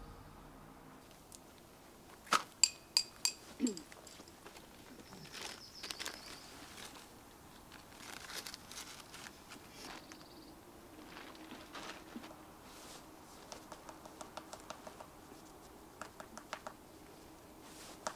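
Faint rustling and crinkling of camping gear being packed up, with a quick run of about five sharp high clicks a couple of seconds in and scattered light ticks later.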